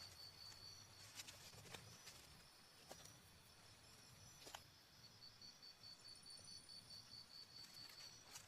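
Faint, rapid, high-pitched pulsing trill of an insect, cricket-like, which fades in the middle and comes back strongly toward the end. A few light clicks or twig snaps sound over it.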